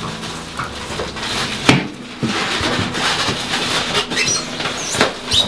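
Cardboard box and plastic wrapping rustling and crinkling as a wet tile saw is lifted out of its shipping box, with a few sharp knocks, one about two seconds in and two near the end, and some short squeaky scrapes in between.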